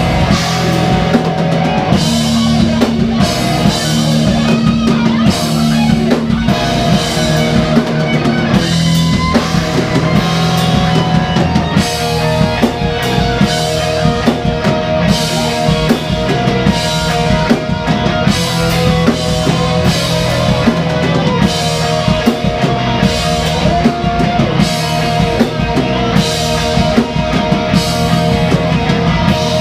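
A band playing rock music on a drum kit and guitars, with the drums loudest.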